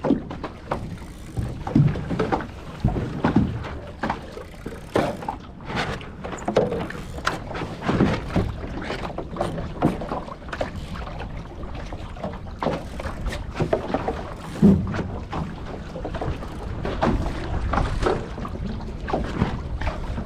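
Water slapping and splashing against a small sailing boat's hull in irregular knocks, over a low steady rumble of wind.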